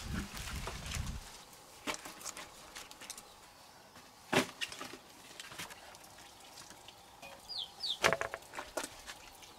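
Sparse wooden knocks and cracks: the loudest about four seconds in, and a quick run of them about eight seconds in. Two short high chirps come just before that run.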